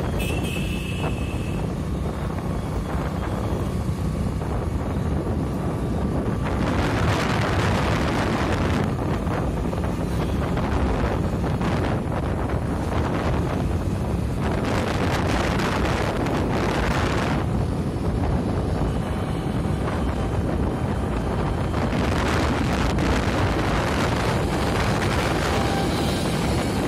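Wind buffeting the microphone of a moving vehicle, over a steady rumble of road and traffic noise. The rush swells louder three times: about a quarter of the way in, just past the middle, and near the end.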